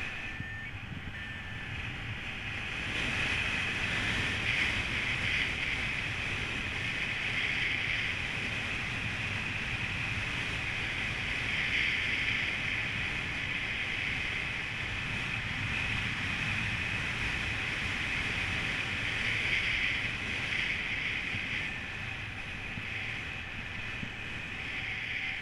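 Wind noise from the airflow over the camera microphone of a paraglider in flight: a steady rush with a hissing edge, louder from about three seconds in and swelling and easing a little.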